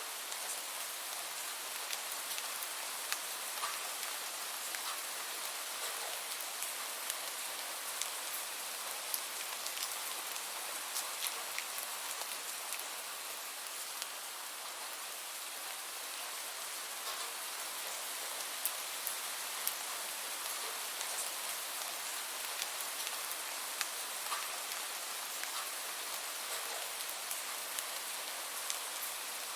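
Steady rain falling on a surface, an even hiss with scattered individual drops pattering through it.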